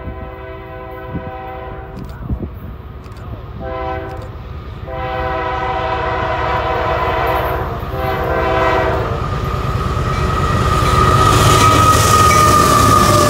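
Union Pacific diesel freight locomotive's air horn sounding a series of separate blasts, a chord of several steady tones, as the train approaches. From about ten seconds in, a rising rumble as the locomotives pass close by, with a steady whine that slips slightly lower in pitch.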